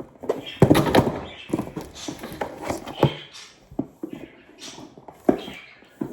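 Cardboard box and packaging being handled to free a plush toy: irregular knocks and thuds with rustling and scraping, busiest about a second in.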